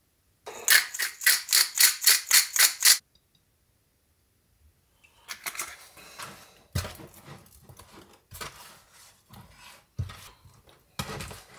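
Salt shaken over a raw flank steak: about ten quick rattling shakes, some four a second, for about two and a half seconds. After a pause, hands rub the marinade and seasoning into the meat in a metal baking pan, giving irregular wet handling noise with a few knocks of the pan.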